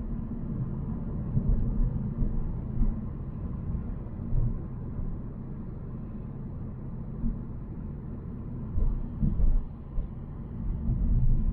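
Volvo C70 being driven: a steady low rumble of engine and road noise that swells and eases in short surges.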